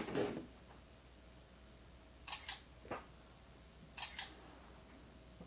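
Smartphone camera shutter sound from the Alcatel Pop 4 Plus, twice, each a quick double click. A soft knock falls between the two shots.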